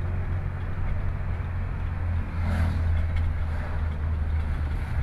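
Steady low drone of a car's engine and tyres, heard from inside the cabin while driving, with a brief swell of road noise about halfway through.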